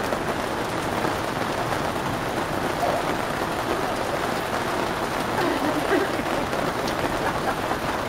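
Steady rain falling, heard from under a canopy.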